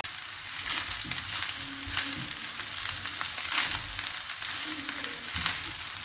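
Fried rice with vegetables and sweet corn sizzling in a hot wok on a gas stove, with a steady hiss. A wooden spatula stirs and turns it, each stroke scraping across the pan about once a second.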